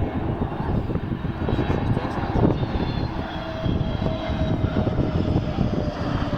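Airbus A320neo jet airliner passing on its landing approach. Its CFM LEAP-1A turbofans make a steady heavy rumble, with faint whining tones that drift slightly down in pitch from about halfway through.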